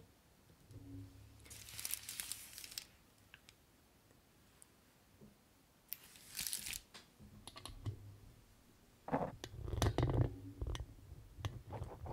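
Plastic bubble mailer crinkling and rustling as a powder compact is handled on it, in two short bursts, then a quicker run of clicks, knocks and rustles near the end as the compact is set back down.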